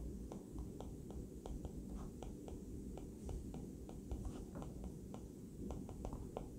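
Stylus tip tapping and ticking on a tablet's glass screen while notes are handwritten: a quiet, uneven run of light clicks, several a second.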